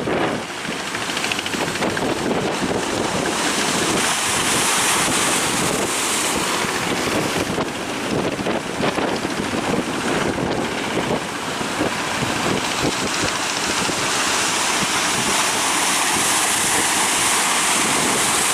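Heavy surf: large waves breaking and rushing, with wind buffeting the microphone.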